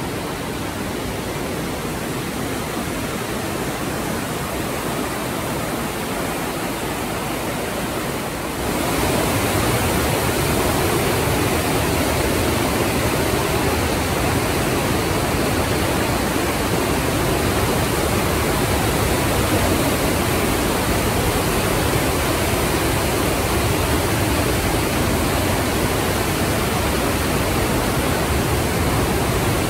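The Partnach, a mountain torrent, rushing as whitewater through a narrow rock gorge: a steady noise that becomes suddenly louder and fuller about eight seconds in.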